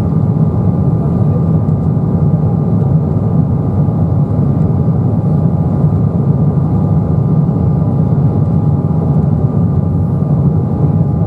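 Steady jet cabin noise inside an Embraer 195 from its GE CF34-10E turbofans: a loud, even rumble with two faint steady tones held above it.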